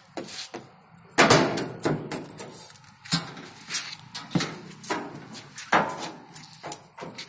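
Irregular knocks, clanks and rattles from a metal-and-plastic playground climbing frame as a child clambers through it, with a heavier clatter about a second in and sharp clicks every half second or so after.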